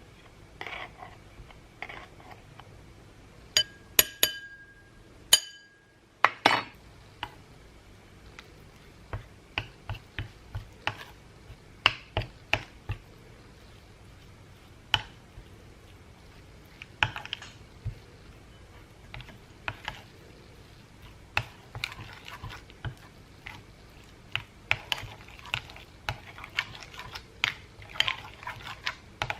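Kitchen utensils clinking and knocking against dishes and pans while food is prepared: scattered sharp clicks and taps throughout, with a short metallic or glassy ring about four to five seconds in.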